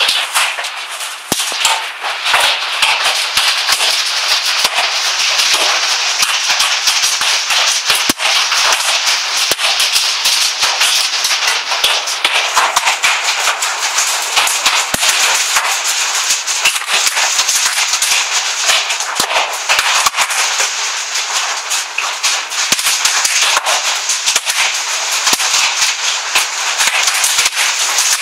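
Heavy hail falling: a loud, dense rattle of hailstones striking hard surfaces, with sharper single cracks standing out now and then.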